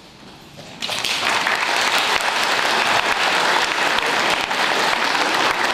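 Audience applause that breaks out suddenly about a second in, then carries on steadily.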